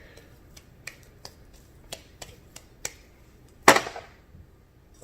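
Light clicks and taps of a spoon and cookie dough on a metal baking pan, several in a row, then one louder short scraping clatter about three and a half seconds in.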